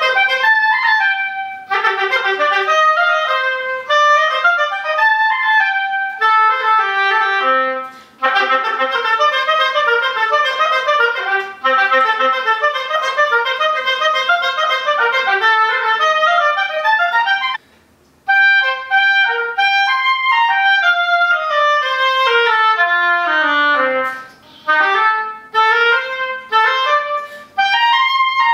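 Solo oboe playing fast runs and leaps of notes, pausing briefly about eight seconds in and again just after seventeen seconds. About three quarters of the way through, a long run falls to a low note and climbs back up.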